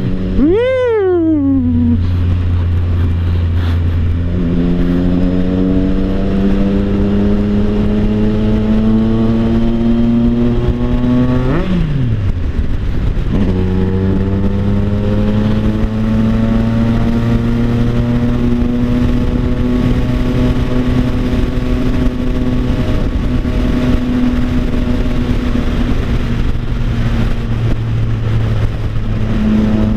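Triumph Tiger Sport 660's inline three-cylinder engine through an aftermarket Orion Toni exhaust, very loud. There is a quick rev about a second in, then a long pull whose pitch rises slowly. The note drops sharply once near the middle and climbs slowly again to a steady drone.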